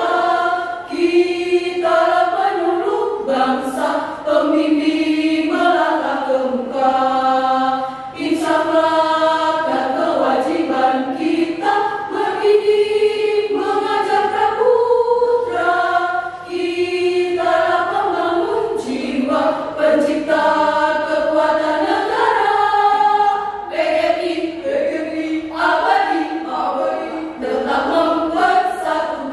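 Women's choir singing, holding notes and moving from phrase to phrase with short breaks between them.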